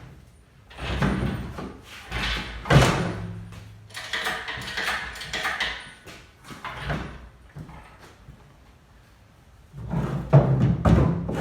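Irregular metal clanks, knocks and scraping from a chain and engine-lifting gear as a big-block engine is handled, in three bursts with quieter gaps between.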